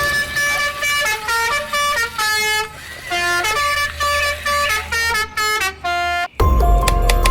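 A tune of short horn-like notes stepping up and down in pitch, like a musical car horn, over a steady low hum. About six seconds in it breaks off and music with a regular beat begins.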